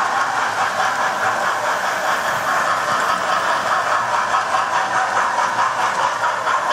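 Model train running along the track: its electric motor running and the wheels rattling on the rails, a steady noise with a regular pulsing rhythm as the locomotive and its coaches pass.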